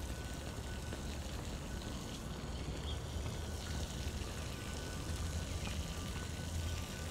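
Steady outdoor background noise, mostly a low rumble, with a faint high tone that comes and goes.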